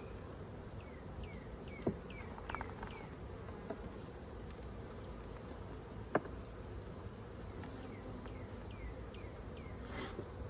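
Honey bees buzzing around an open hive, a steady hum, with a couple of sharp clicks about two and six seconds in.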